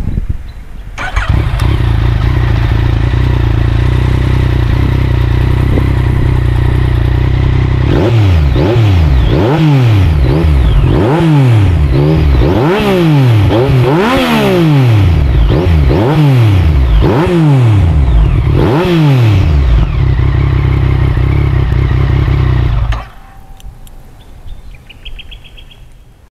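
Motorcycle fitted with an aftermarket exhaust muffler starting up about a second in and idling. It then takes a string of about ten quick throttle blips, each rev rising and falling, settles back to idle and is switched off near the end.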